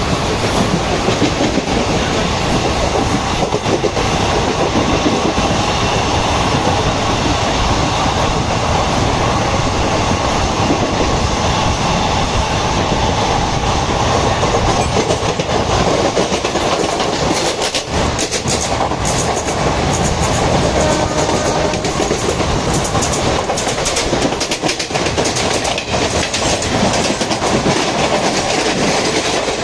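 Passenger trains running at speed on the rails: a steady loud rumble with the wheels clacking over rail joints, the clacks more distinct in the second half.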